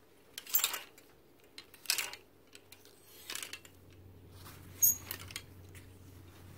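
Plastic clothes hangers scraping and clacking along a clothing rack rail as garments are pushed aside one by one, in four or five short scrapes about a second apart, with a sharp click about five seconds in.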